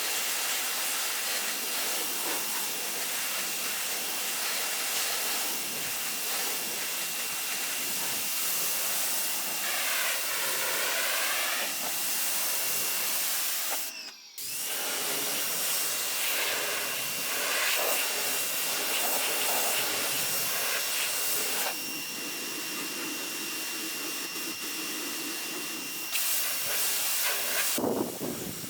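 Sun Joe SPX3000-QW2 electric pressure washer spraying: a steady hiss of the water jet with a thin steady whine through it, broken off for a moment about halfway.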